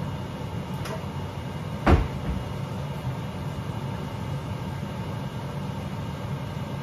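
A single dull thump about two seconds in, a kitchen door being shut, over a steady low hum.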